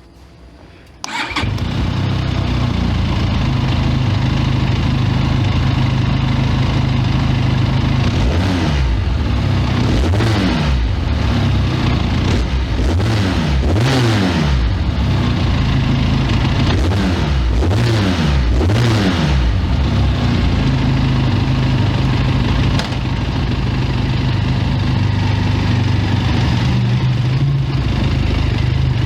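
Benelli 502C's 500 cc parallel-twin engine on its stock exhaust starting about a second in and settling into a steady idle. In the middle it is revved in a series of quick throttle blips, each rising and falling in pitch, before dropping back to idle.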